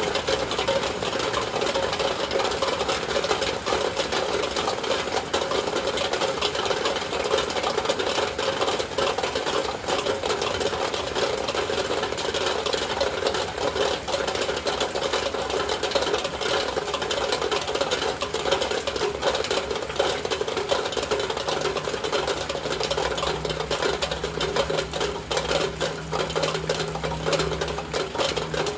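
Heavy rain beating steadily on a window, a dense patter of countless drop impacts. A low hum comes in about two-thirds of the way through.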